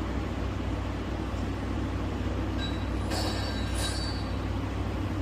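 Steady low hum of city background noise, with a brief cluster of high thin squealing tones from a little after halfway to about four seconds in.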